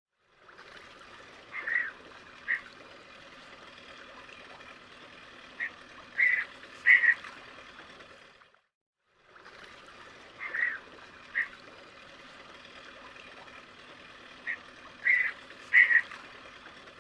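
Bird calls: short, sharp calls in small groups of one to three, over steady background hiss. The same eight-second recording plays twice, with a brief silent gap between.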